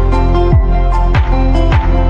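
Background music with a steady beat: deep bass kicks that drop in pitch, about one every three-quarters of a second, under held chords.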